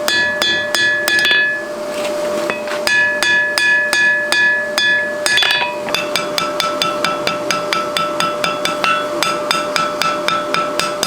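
Blacksmith's hammer striking hot mild steel on an anvil in a steady rhythm, each blow followed by a ringing tone. There is a short break about two seconds in. From about six seconds the blows come faster, about four a second, with a different ring.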